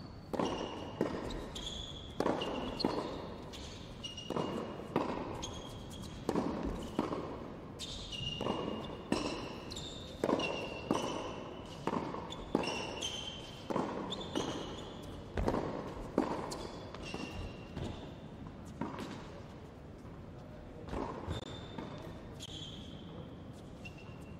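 Tennis practice rally on an indoor hard court: racket strikes on the ball and ball bounces one to two a second, each echoing briefly, with short high-pitched sneaker squeaks on the court surface between them. The hitting thins out near the end.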